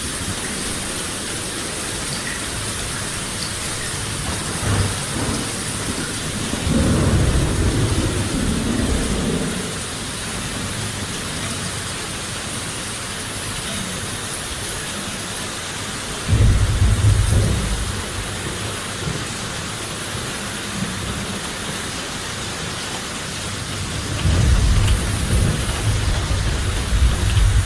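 Steady heavy rain with three low rolls of thunder: one about seven seconds in, one a little past halfway, and one building near the end.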